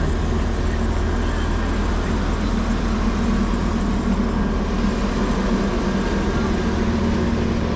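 Articulated natural-gas city bus (LA Metro Rapid) running close by at the curb, its engine a steady low drone with an even hum over it.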